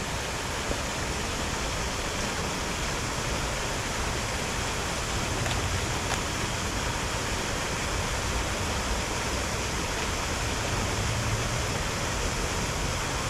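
Steady rush of falling water from a garden waterfall, an even splashing hiss that holds without change.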